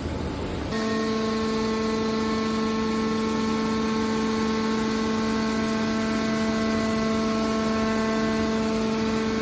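Hydraulic scrap car baler running: a steady pitched hum with a whine above it over machine noise, which starts abruptly less than a second in.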